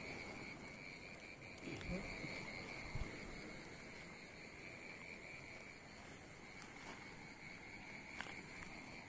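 Faint, steady chirring of crickets or other night insects, with soft handling rustles and a brief knock about three seconds in.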